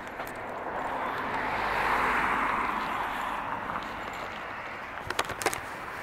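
A car passing on the street, its tyre and engine noise swelling to a peak about two seconds in and then fading away. A few sharp clicks come near the end.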